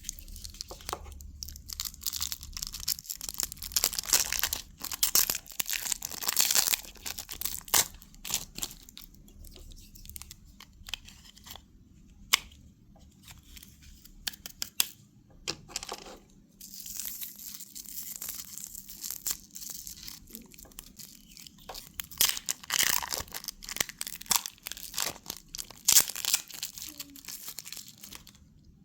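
Candy and toy packaging being torn open and crinkled by hand, in irregular bursts of tearing and rustling, with a quieter stretch in the middle.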